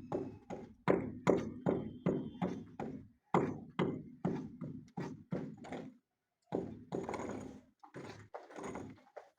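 Repeated dull thuds from construction work, about three a second, stopping briefly about six seconds in before a longer, noisier stretch and a few more knocks.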